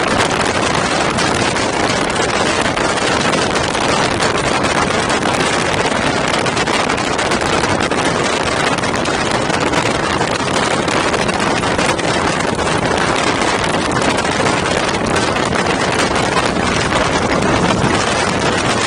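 Steady rush of wind buffeting the microphone of a camera riding on a moving motorcycle, a loud even roar with no clear engine note.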